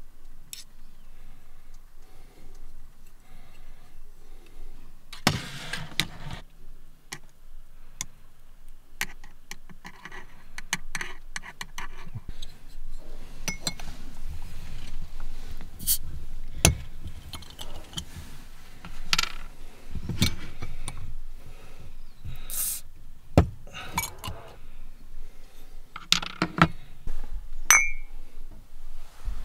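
Close handling clinks and scrapes: a metal spoon and chopsticks against a tin can, then glass Coca-Cola bottles being picked up and knocking together. Sharp clicks come irregularly, more often and louder in the second half.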